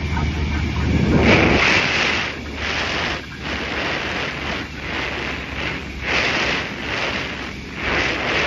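Cessna 172S's four-cylinder engine droning steadily in the cabin. From about a second in, loud rushing noise covers it in surges roughly a second apart.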